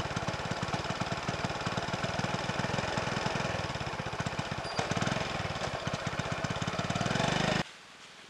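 A vehicle engine idling steadily with a fast, even chugging beat, stopping suddenly near the end.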